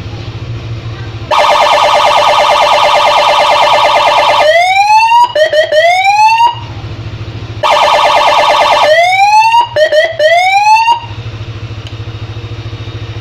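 Aftermarket police-escort electronic siren sounding twice. Each time it plays a fast warble for about three seconds, then a few rising whoops. Between the two runs, and from about eleven seconds on, an engine idles steadily.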